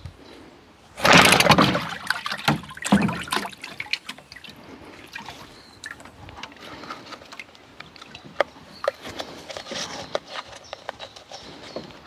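British Seagull Forty Plus outboard turned over by a pull of its starter cord about a second in, the propeller briefly churning the water in the test bin, but the engine does not catch. Water then sloshes and trickles, with scattered clicks and knocks.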